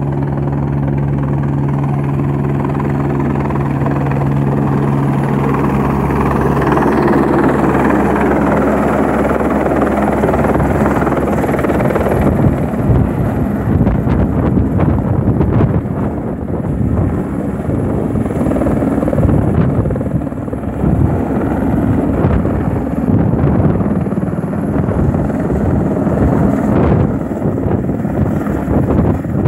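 Light single-rotor helicopter coming in to land close by. A steady rotor-and-engine drone grows louder over the first several seconds, then gives way to a heavy rushing, buffeting noise as the rotor downwash blasts the microphone.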